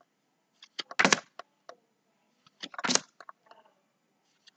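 Card flashcards being handled and swapped, giving short bursts of clicks and flicks of card against card, twice, about two seconds apart.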